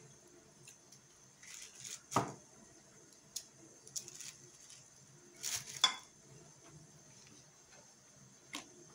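Scattered knocks and clinks of hands packing herring pieces and onion into a glass jar on a table, with brief soft rustling; the loudest knock comes about two seconds in and a pair of clinks near six seconds.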